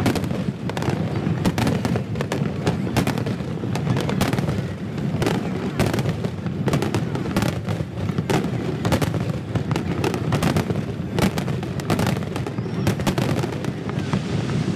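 Aerial fireworks display: shells bursting one after another, with many sharp cracks and bangs a second over a continuous low rumble.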